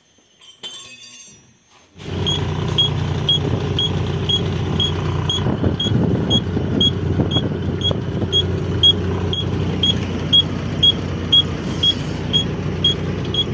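12-wheel truck running on the road with a steady low engine and road noise that starts abruptly about two seconds in. A short high-pitched pip repeats evenly about twice a second over it.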